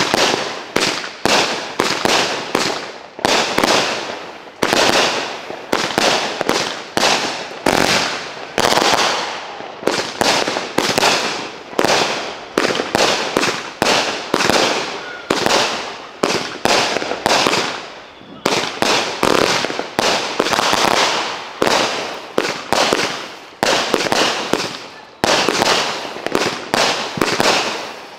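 Consumer multi-shot firework cake firing aerial shells in quick succession: sharp bangs about two a second, each fading out quickly, with a few slightly longer gaps of fading crackle between shots.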